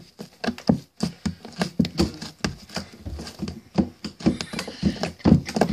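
Homemade glitter slime squished and poked by hand: a quick, irregular run of short wet squishes.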